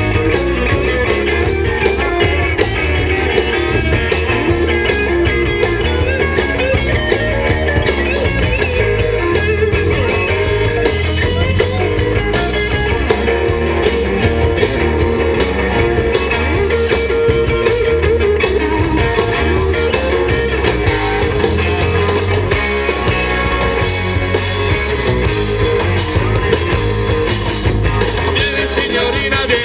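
Live rock and roll band playing loudly, with guitar to the fore.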